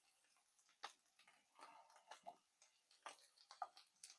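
A knife slicing a bell pepper on a cutting board: faint, irregular taps and clicks, about half a dozen spread across a few seconds.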